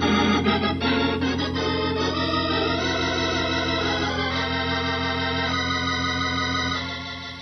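Organ music bridge between scenes: a flurry of quick notes, then a few held chords that fade out near the end.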